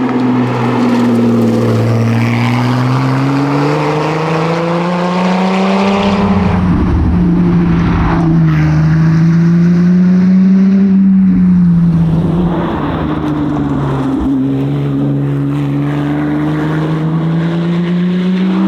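2016 Lotus Exige S's supercharged V6 engine running under load at speed, its note climbing slowly, then holding and wavering up and down, with a short rough rumble about six seconds in.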